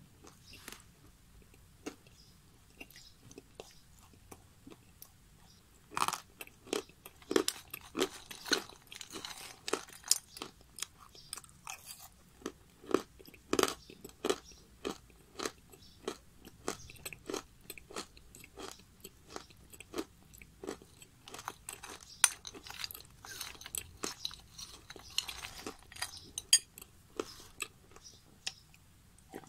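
Close-miked chewing of hard, crunchy chunks of edible clay. A few faint clicks at first, then, from about six seconds in, a dense run of sharp crunches.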